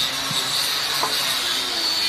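A steady high-pitched hiss of working machinery, with a couple of faint knocks about a third of a second and a second in.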